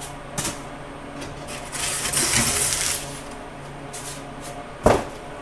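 Workshop handling sounds: rustling, a few small clicks, and one sharp knock just before the end, as tools and materials are moved about and set down, all over a steady low hum.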